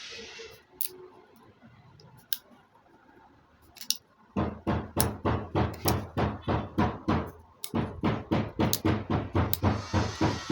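Background music with a steady beat of about three pulses a second, which drops out for the first four seconds; in that gap a few sharp clicks are heard.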